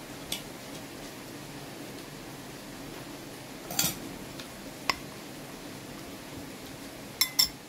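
Eating utensils clinking against a dinner plate: a light clink about a third of a second in, a small cluster a little before the middle, a brief ringing clink about five seconds in, and two quick, louder clinks near the end, over a steady low room hum.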